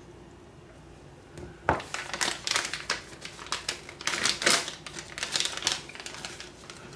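Plastic snack packet crinkling and crackling as it is handled and opened. It starts with a sharp click about a second and a half in and goes on in dense crackles for several seconds.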